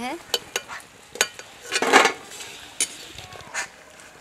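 A metal slotted skimmer (pauni) clinking and scraping against an iron kadhai as fried papdi are lifted out of the oil: several sharp clinks and a brief scrape about two seconds in.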